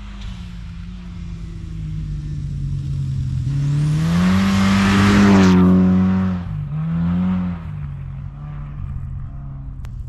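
2005 Mitsubishi Lancer Evolution rally car's turbocharged four-cylinder engine at full throttle as it approaches and passes, loudest about five seconds in with a rush of tyre and snow-spray noise. The engine note drops about six and a half seconds in, picks up briefly once more, then runs on lower as it moves away.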